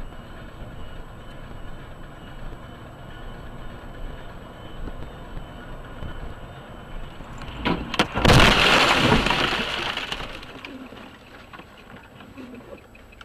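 Road noise inside a car's cabin, then about eight seconds in two sharp knocks and a loud rushing burst of about two seconds that fades away, as snow is flung over the windscreen.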